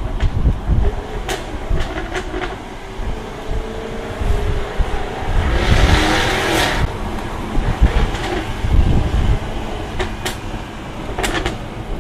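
Jaguar F-Type R's supercharged 5.0-litre V8 exhaust rumbling on the move, with sharp crackles and pops a little after one second, around two seconds, and twice near the end. A brief rush of noise comes about halfway through.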